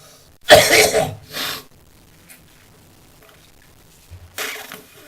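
A man coughing: a loud cough about half a second in with a shorter one right after, then a pause and a weaker cough near the end. These coughs are part of a long morning coughing fit that clears his airways.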